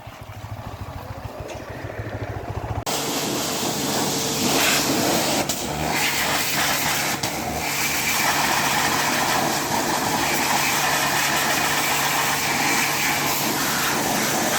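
A vehicle engine running with a low, even pulse. About three seconds in, it changes abruptly to a loud, steady rushing noise with a constant engine hum beneath it.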